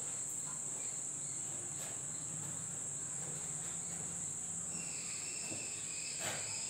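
A steady high-pitched trill in the background, with a faint tap and scratch of chalk on a blackboard near the end.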